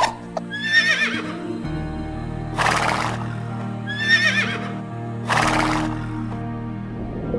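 An animal call, a wavering high-pitched cry, comes twice. Each cry is followed by a short breathy, noisy burst, all over background music.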